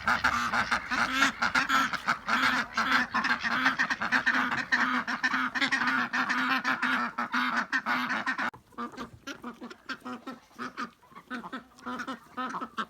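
A flock of domestic ducks quacking loudly in a dense, overlapping chorus. About two thirds of the way in it suddenly drops off to quieter, scattered sounds.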